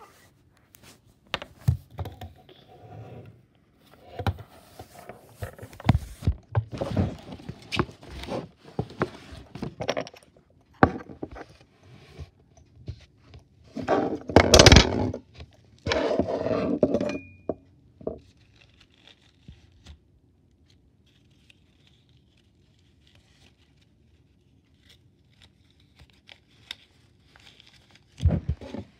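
Handling noise from a phone held close in the hand: irregular scraping, rubbing and knocking against the microphone, loudest about halfway through. It then goes mostly quiet for about ten seconds, with one more knock near the end.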